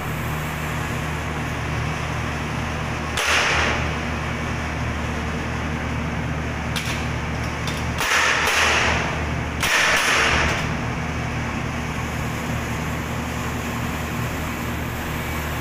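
Steady electrical hum in a switchgear room while an air circuit breaker is worked by hand. Three short rushing bursts of noise come about three, eight and ten seconds in, with a couple of light clicks just before the second.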